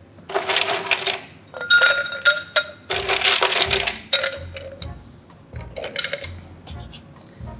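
Ice cubes scooped from an ice bin and dropped into a stemmed glass, rattling and clinking against the glass in about five separate scoops, with light background music.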